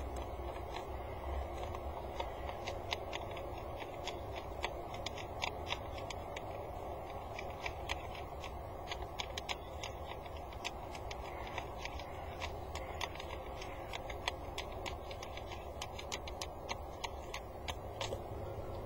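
Peregrine falcon picking up and swallowing small stones from the gravel floor of a nest box: irregular sharp clicks of beak on pebbles, several a second, over a steady background hum.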